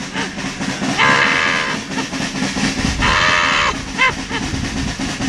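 Loud horn-like blasts, three held high notes each just under a second long, over a steady low drone.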